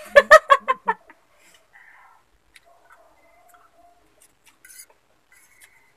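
A person laughing, a quick run of about five loud 'ha' pulses lasting about a second, followed by faint clicks of forks against plates and small eating sounds.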